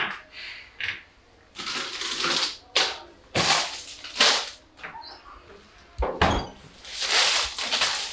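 Kitchen handling sounds: a string of short rustles, clatters and knocks as food is taken from a fridge and a plastic-wrapped package is handled at the counter.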